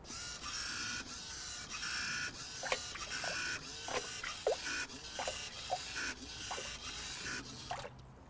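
The wave paddle of a small laboratory wave tank whirring as it drives a run of five waves; it starts abruptly and cuts off near the end. Over it come short splashes and slaps of water as the waves run up a stepped revetment model and overtop it.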